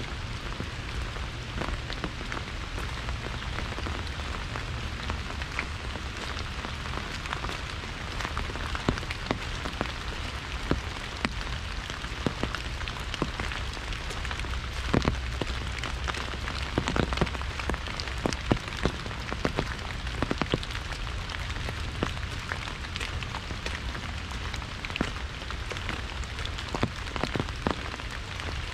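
Rain falling on an umbrella overhead: a steady hiss of fine rain with many sharp single drop hits, louder and more frequent through the middle.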